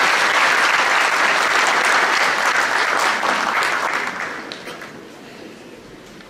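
Audience applauding: dense clapping that dies away about four to five seconds in.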